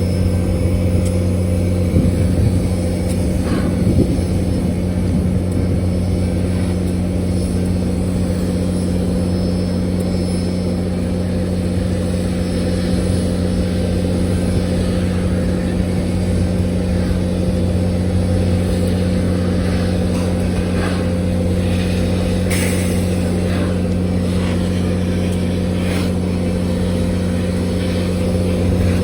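Steady low drone of a moving passenger train heard from on board, with a few faint clicks.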